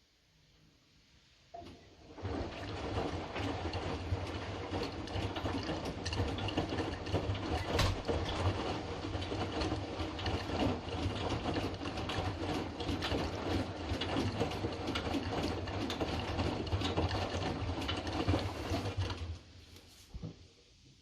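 Hotpoint washing machine's drum turning in the main wash on a Fastwash 60 programme. After a click, the motor starts about two seconds in: a steady hum with many small clicks and rattles for about seventeen seconds. It then stops, pausing before the next tumble.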